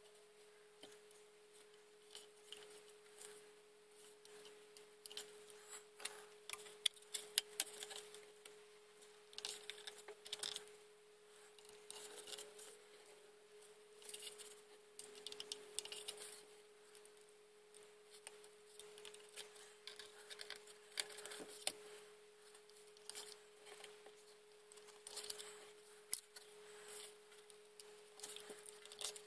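Small light clicks and ticks of fingers handling tiny lights with wire leads against a plastic model hull, scattered and irregular, over a faint steady tone.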